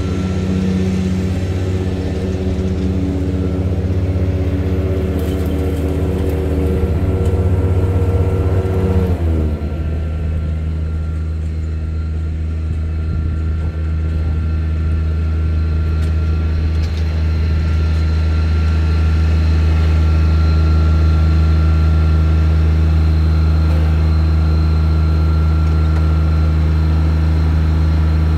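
John Deere Z994R diesel zero-turn mower engine running steadily. About nine seconds in, its note slides down to a lower, steady pitch. It then grows a little louder as the mower drives closer.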